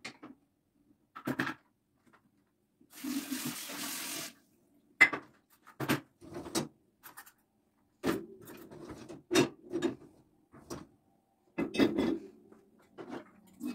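A kitchen tap runs for about a second, then dishes and cutlery clink and clatter in a string of sharp knocks as they are handled at the sink and set into the racks of an open dishwasher.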